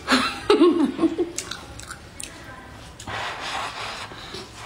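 A woman eating hot noodles: a short wavering vocal sound through a full mouth with chewing and a few wet mouth clicks, then about three seconds in a breathy hiss as she blows on the hot soup to cool it.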